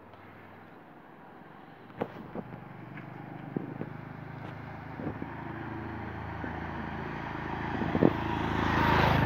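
Motorcycle engine approaching along the road, growing steadily louder until it passes close by near the end. A few sharp clicks sound along the way.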